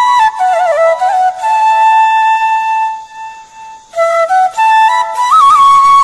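Instrumental background music: a flute melody that steps through a few notes, holds one long note, drops away for about a second, then picks up again.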